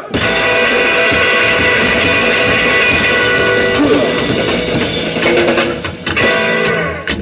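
Rockabilly band playing live: electric guitar, double bass and drum kit. The full band comes in all at once just at the start.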